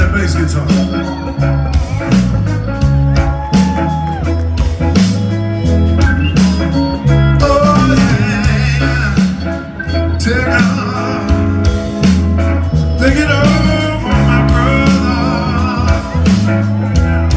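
Live blues-rock band playing: electric guitars, bass and drum kit keeping a steady beat, with a man singing.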